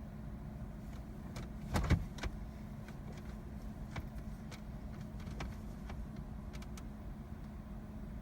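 Inside a parked car: a faint steady hum with a few light clicks and a short cluster of small knocks about two seconds in.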